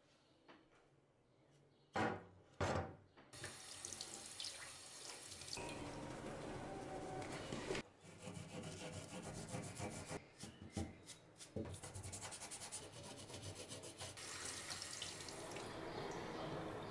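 Water running into a stainless steel sink while the steel blade of an antique round leather knife is scrubbed by hand with a white cleaning powder. Two sharp knocks come about two seconds in, before the water starts.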